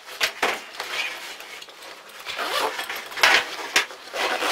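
Fabric backpack being handled as its pockets are opened: irregular rustling and scraping of the pack's cloth and zips, with a couple of short knocks near the start.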